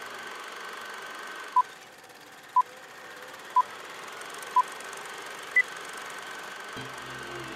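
Film countdown leader beeps: four short beeps a second apart, then a fifth, higher-pitched beep, over a steady hiss with a faint whine. Low music comes in near the end.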